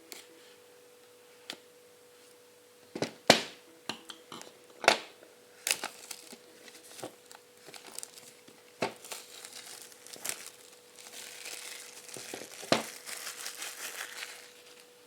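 Smartphone packaging being handled: plastic wrap crinkling and tearing, with a string of sharp clicks and crackles and a denser stretch of crinkling near the end. A faint steady hum tone runs underneath.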